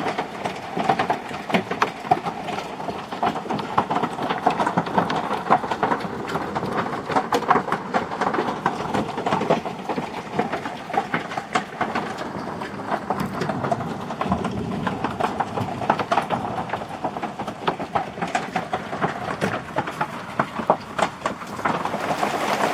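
Hail, with some of it bigger than pea-sized, drumming on the RV in a dense, unbroken clatter of sharp rapid impacts.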